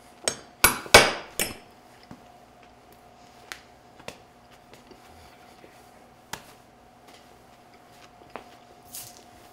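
A quick run of about four sharp knocks and clinks near the start, like metal utensils handled on a wooden cutting board. These are followed by a few faint scattered clicks over a faint steady hum.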